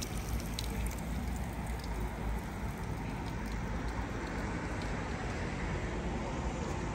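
Steady outdoor background noise: a continuous low rumble under an even hiss, with a few faint ticks in the first second or two.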